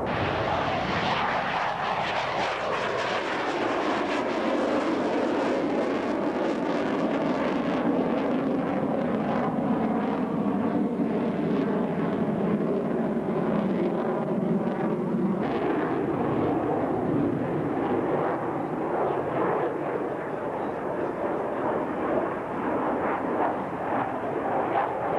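F/A-18 Hornet fighter jet flying in the air, its twin jet engines giving a dense, steady rushing noise. The pitch falls over the first few seconds as it passes.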